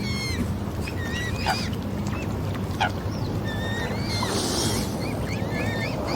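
Swans calling with many short, high, hooked peeps and a few louder calls, over a low steady hum. A brief hiss about four seconds in.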